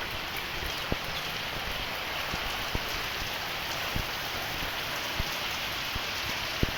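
Heavy rain falling steadily at one even rate, a dense hiss of rain on surfaces, with a few sharp ticks of single drops.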